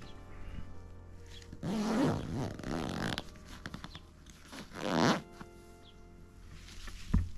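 Zipper on a fabric carry bag for a pop-up screen tent being pulled shut in two long rasps, about two seconds in and about five seconds in. A short low thump near the end.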